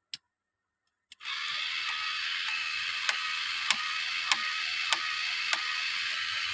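Small electric motor starting about a second in and running steadily, whirring through plastic Lego Technic gears, with a sharp click about every 0.6 s as the mechanism turns.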